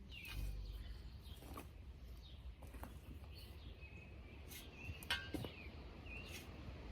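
Faint outdoor ambience with small birds chirping now and then, a few sharp clicks, the loudest about five seconds in, over a steady low rumble.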